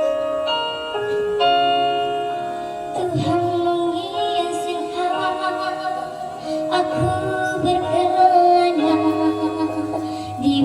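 A song with sustained instrumental chords, then a woman's singing voice coming in about three seconds in and carrying the melody over the accompaniment.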